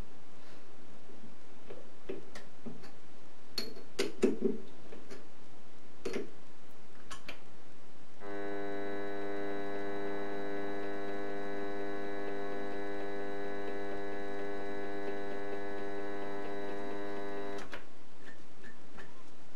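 Light metallic clicks and taps from handling tools and parts on a mini metal lathe. About eight seconds in, a steady organ-like chord starts abruptly, holds without change for about nine seconds and cuts off suddenly, followed by a few more clicks.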